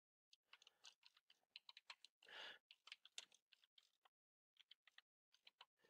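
Faint typing on a computer keyboard: a quick, irregular run of keystrokes, a short pause about four seconds in, then more keystrokes.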